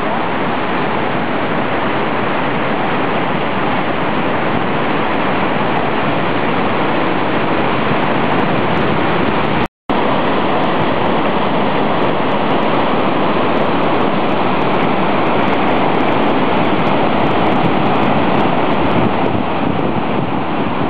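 Grawa waterfall's steady rush of falling water and whitewater pouring over boulders, cutting out for a split second about halfway through.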